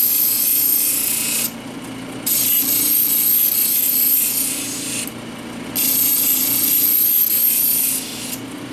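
A cabochon rubbing on the spinning 14,000-grit wheel of a wet cabbing machine, the fine last stage before polishing. The hissing rub comes in three long passes, broken twice by short lifts, over the steady hum of the machine's motor.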